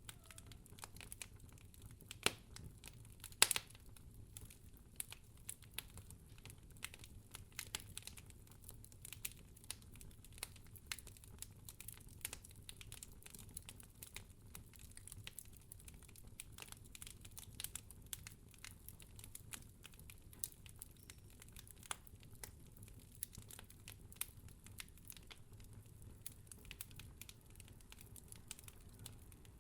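Wood fire crackling: a dense, irregular run of small sharp pops and snaps over a low rumble, with two louder pops a few seconds in.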